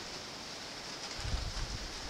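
Outdoor ambience: a steady high hiss, joined a little after a second in by low wind buffeting on the microphone.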